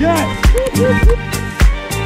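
Background music with a steady beat of about two kicks a second, a bass line and gliding melodic notes.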